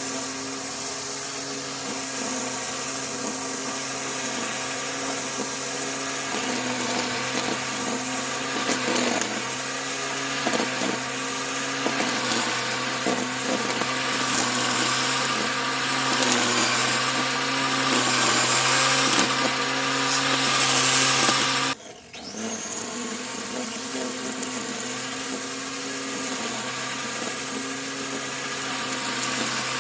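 Corded electric motor of a BLACK+DECKER 3-in-1 compact lawn mower running steadily while cutting overgrown grass: a whirring hum with a rougher, louder hiss in the middle as it works through the grass. The sound breaks off for a moment about two-thirds of the way through, then carries on.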